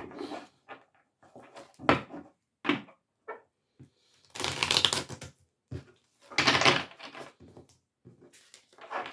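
A deck of oracle cards being shuffled: a run of short papery flicks and riffles, with two longer, louder shuffles about four and six and a half seconds in.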